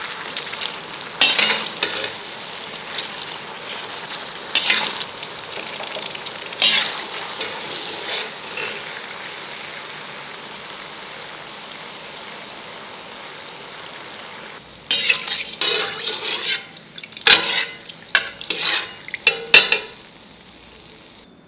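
Cauliflower florets deep-frying in oil in a kadai: a steady sizzle that slowly dies down, with a few sharp scrapes of a perforated steel skimmer against the pan. Near the end comes a quick run of louder metal scrapes and taps as the skimmer lifts the last pieces out.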